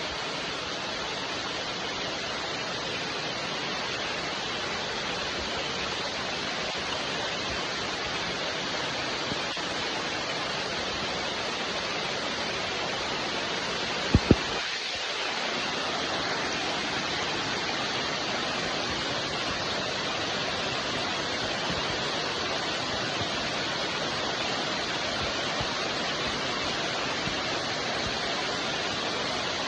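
Steady rain falling, an even hiss, with two sharp clicks close together about halfway through.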